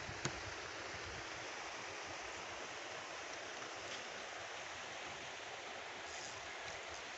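Steady outdoor background hiss beside a fishing pond, with one sharp click just after the start.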